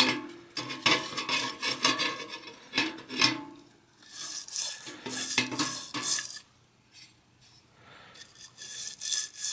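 A small stiff brush scrubbing the metal body and cage of an Atom 440 bicycle pedal wet with paint thinner, in bursts of quick scratchy back-and-forth strokes, pausing for about a second and a half about two-thirds of the way through.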